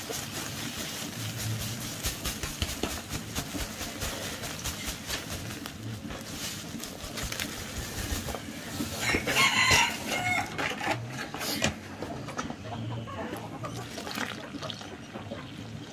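Dry ground feed poured from a sack into a plastic bucket, a continuous rustling hiss. About nine seconds in a rooster crows once, the loudest sound. Near the end water is poured onto the feed.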